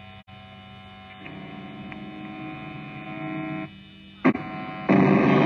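Electrical mains hum and buzz from the stage's amplified sound system, changing in level. There is a sharp click about four seconds in, and near the end a much louder, rougher buzz starts.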